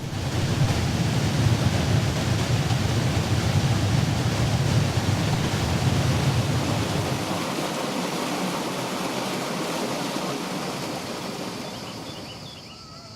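A steady rushing noise, loudest and deepest for about the first half, then thinning out and fading near the end.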